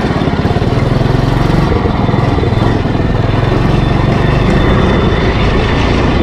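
A homemade trike's small gas engine running steadily under load as the trike is ridden over dirt, heard close up from a helmet mount.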